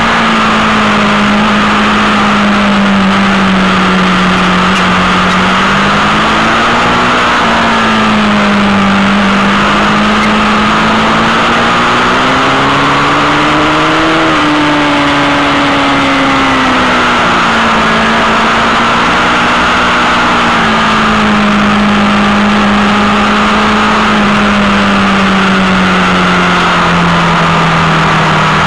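Sport motorcycle engine heard from an onboard camera while riding, under steady wind and tyre noise. The engine note climbs gradually to a peak about halfway through, then eases back down.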